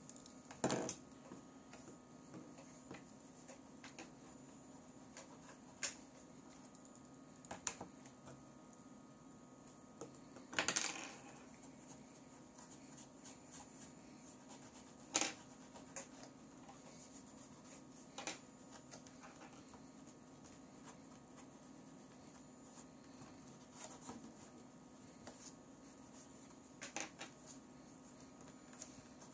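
Scattered light clicks and taps of items being handled and set down on a workbench, about eight over the stretch, one a little longer around the middle, over a steady faint electrical hum.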